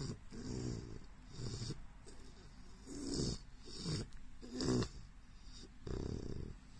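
English bulldog puppy snoring as it breathes, in a series of snorting breaths about a second apart.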